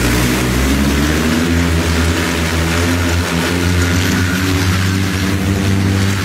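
Manned quadcopter hoverbike's propellers running at lift-off power, a loud buzzing drone with a rush of air, shifting up a little in pitch about a second in as it rises off the ground and then holding steady as it hovers.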